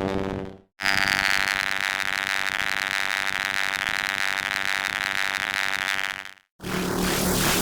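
Electrical buzz sound effect: a steady, high-pitched electric buzz lasting about five and a half seconds, starting and cutting off abruptly. A lower electric hum fades out at the start, and a crackling hum begins near the end.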